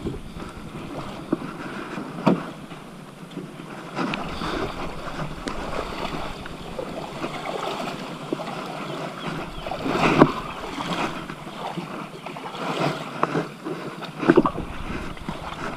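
Shallow water lapping and sloshing around an outrigger fishing boat as it is shifted off the sand, with a few sharp knocks, the loudest about ten seconds in and near the end; the outboard motor is not running.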